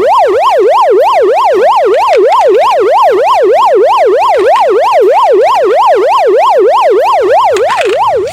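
Toy police car's electronic siren sounding a fast up-and-down yelp, about three sweeps a second, loud and steady, then cutting off abruptly.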